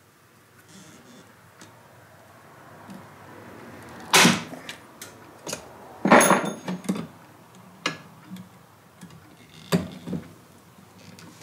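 Stanley hand pop-rivet gun setting rivets through the retaining ring of a rubber lever boot on a steel bracket. It gives two loud sharp cracks about two seconds apart as rivet mandrels snap, with lighter clicks and metallic clanks as the tool is squeezed, put down and handled on the workbench.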